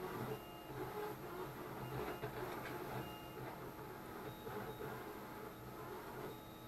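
Small hobby servo motors of a pan-tilt camera mount whirring as they move, with brief high whines now and then.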